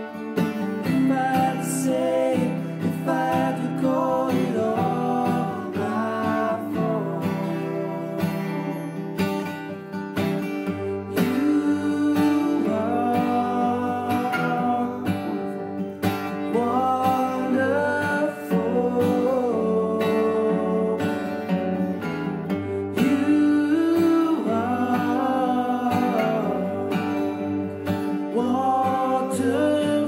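Song with strummed acoustic guitar and a singing voice.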